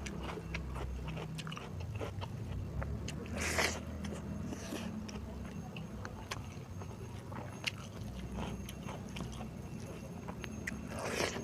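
Close eating sounds of a person chewing and biting into beef curry with rice: many small wet clicks of the mouth, with two brief louder noisy sounds, one about a third of the way in and one near the end.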